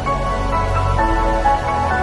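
Background music with held melodic notes over a steady low bass.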